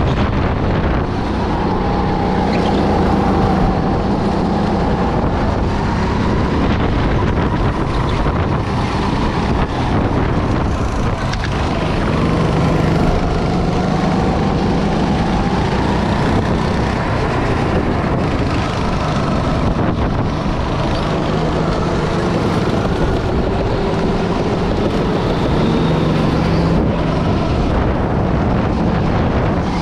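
Go-kart engine running hard, its pitch rising and falling every few seconds, with wind noise on the microphone.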